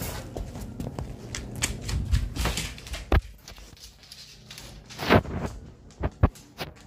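Irregular clicks and knocks on a hard wooden floor as dogs and a person walk around, with dog claws clicking. Louder knocks come about three, five and six seconds in, the one near five seconds the loudest.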